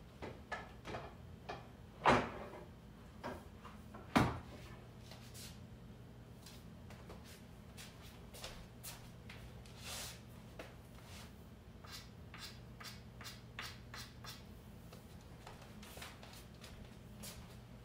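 Scattered light knocks and taps from someone moving around a pool table with a cue, with two louder knocks about two and four seconds in, over a faint steady low hum.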